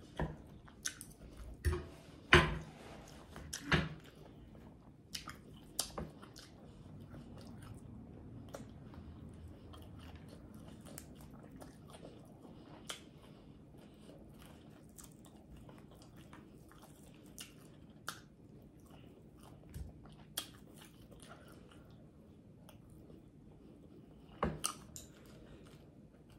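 Close-up eating sounds: a person biting and chewing fried pork chop with mouth smacks, a run of sharp clicks in the first few seconds, then sparser chewing, and another cluster of smacks near the end.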